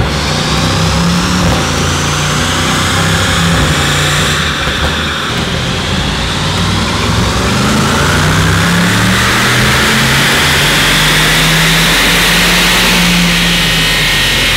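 Mercedes-AMG S63's twin-turbo V8 pulling under load on a chassis dynamometer, revs climbing. Its pitch drops about four to five seconds in, then climbs steadily again through most of the rest.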